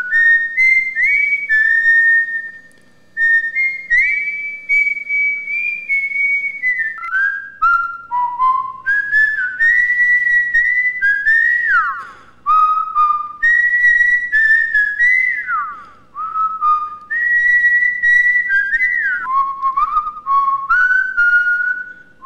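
A person whistling a tune by mouth: a melody of held notes with quick slides up and down between them, stopping for short pauses several times.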